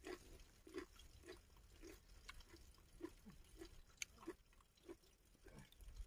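Faint close-up chewing of a mouthful of rice and fish, soft regular chews about twice a second.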